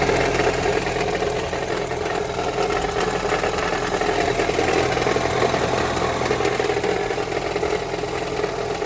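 2015 Ford Escape's 1.6 EcoBoost four-cylinder engine idling steadily with a rattle; the rattle comes from a broken flex plate.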